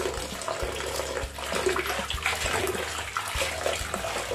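Tap water running into a plastic basin, with splashing and swishing as a handful of saag greens is washed in it by hand.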